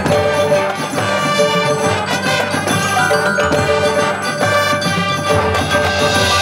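Marching band playing: wind and brass instruments holding chords over percussion strokes.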